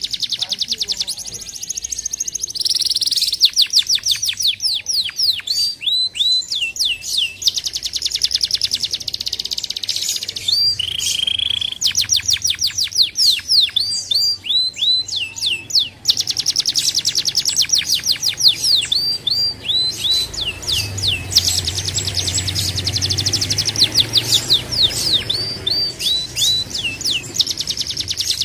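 Canary singing a long, near-continuous song of fast high trills and quick runs of falling whistled notes, with only brief breaks between phrases.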